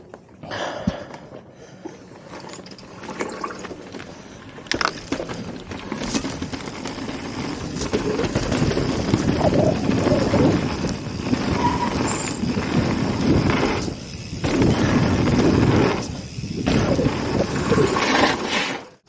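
Mountain bike being ridden on a dirt trail, heard from a camera carried on the bike or rider: wind buffeting the microphone over the rumble and rattle of the tyres and frame. It grows louder over the second half with brief lulls and cuts off suddenly at the end.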